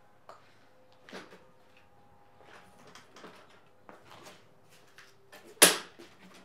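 Soft steps and light knocks from handling a gasoline push lawn mower on a concrete garage floor, then one sudden loud clatter near the end.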